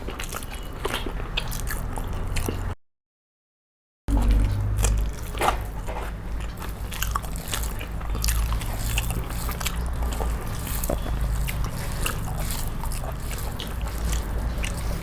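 Close-miked eating sounds: food being bitten and chewed, with many small clicks and crunches over a low steady hum. The sound cuts out completely for about a second near three seconds in.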